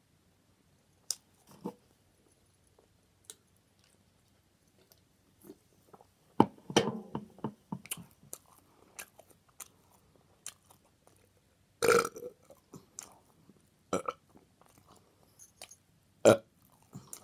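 Mouth sounds of someone eating a sandwich: quiet chewing and small mouth clicks, broken by several loud burps, the loudest about six and a half seconds in and another near twelve seconds.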